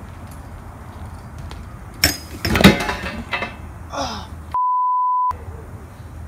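A BMX bike and its rider slam onto a wooden grind rail in a crash, a loud clatter of impacts about two seconds in. Near the end a single steady censor bleep replaces all other sound for under a second, covering a word.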